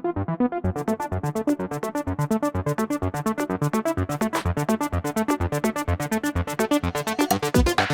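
Electronic background music: fast repeating synthesizer notes, brightening about half a second in and building toward a drop.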